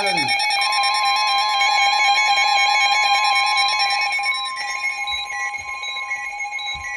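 Emergency Alert System two-tone attention signal: a steady, loud dual tone near 850 Hz and 960 Hz. The higher tone joins about half a second in, and the signal dips slightly in level near the end. It signals that an emergency alert message, here a severe thunderstorm warning, is about to follow.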